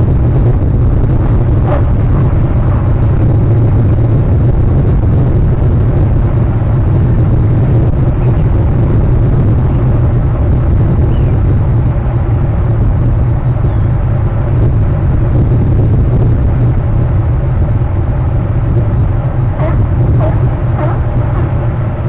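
Steady loud low rumble with no pitch to it, and a few short sharp sounds, like calls or clicks, near the end.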